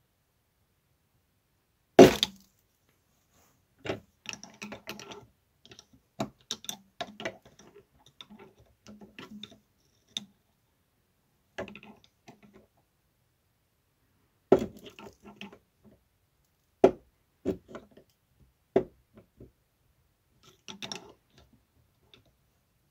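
Two steel flat screwdrivers prying a press-fit pulley off a Nema 17 stepper motor shaft: irregular sharp metal clicks and knocks as the blades lever against the pulley and the motor's end face. The loudest click comes about two seconds in, with strong single clicks again near the middle and later on, and clusters of smaller ticks and scrapes between them.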